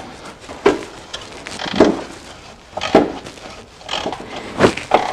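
Sharp metallic knocks of a wrench working the corroded steering-rack mounting bolts on the subframe, about one a second, the loudest near the end.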